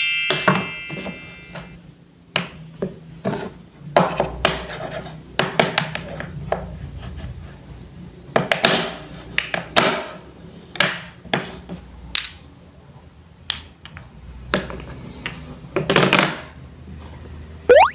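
Toy wooden fruit and vegetables being cut and handled with a toy knife: a run of rasping, scraping strokes and light knocks at irregular intervals.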